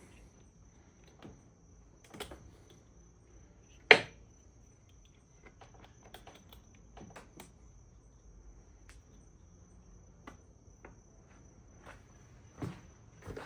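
Scattered light clicks and knocks of hands and tools working on an outboard motor's ignition, with one sharp knock about four seconds in, over a faint steady high-pitched tone.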